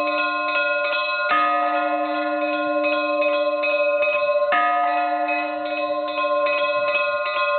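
Russian Orthodox church bells in festive ringing: a deep bell struck twice, about three seconds apart, under smaller bells rung quickly in a pattern.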